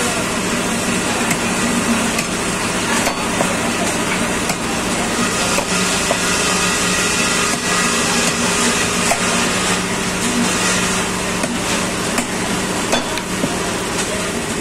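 Butcher's cleaver chopping a cow's leg on a wooden chopping block: sharp, irregular chops about every one to two seconds, over a steady low drone.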